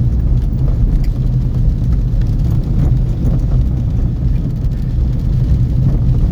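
A car driving, heard from inside the cabin: a steady low rumble of engine and tyres.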